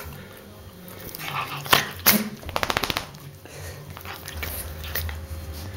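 A dog sneezing: two sharp sneezes in quick succession about two seconds in, followed by a quick run of rapid clicks.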